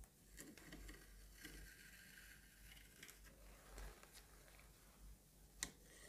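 Faint, soft scraping of a wire loop sculpting tool against kinetic sand, with one sharp tap near the end.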